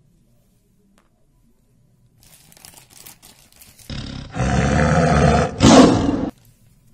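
Tiger roaring: a rough roar starts about four seconds in, swells, breaks off briefly, and ends with a final, loudest surge. Faint crackling comes just before it.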